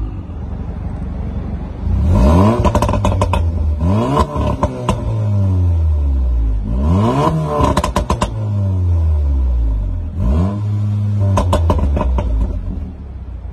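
Volkswagen Golf 7 R's turbocharged 2.0-litre four-cylinder running through an Armytrix valvetronic exhaust, blipped from idle about five times, each rev rising quickly and falling back with a rapid run of crackles.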